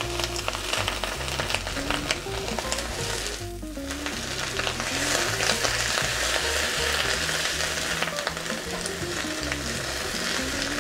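Chinese kale stems and leaves sizzling in hot oil in a nonstick wok as they are stirred and tossed with a plastic spatula. The sizzle grows louder about halfway through.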